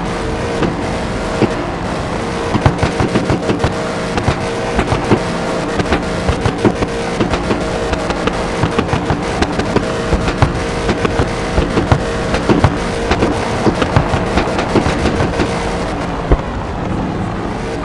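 Car engine held at high revs while drifting, running steadily with many sharp cracks and pops throughout.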